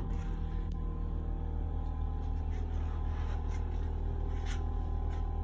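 A steady low hum with evenly spaced low tones, unchanging throughout, with a few faint light ticks over it.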